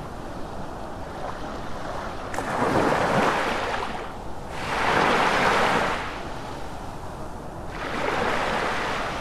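Sea waves washing onto the shore, the surf rising and falling in three slow swells.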